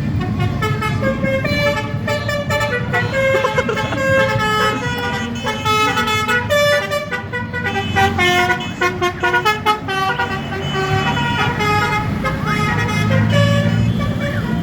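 Bus telolet horn, a multi-tone musical air horn, playing a tune of short stepped notes with several pitches sounding at once. The bus engine rumbles underneath.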